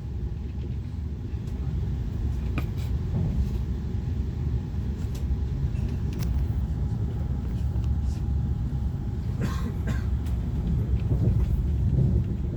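Steady low rumble of an Italo high-speed train heard from inside the passenger car, with a few faint clicks.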